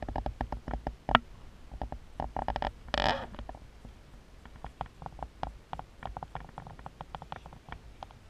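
Wind rumbling on the microphone, with scattered light clicks and a brief rushing noise about three seconds in.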